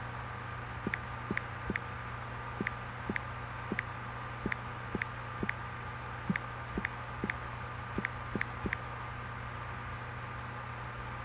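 Aquarium air pump running with a steady electric hum, and light clicks at an irregular pace, about one or two a second.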